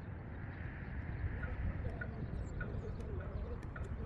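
Wind rumbling on the microphone, with a few faint short ticks.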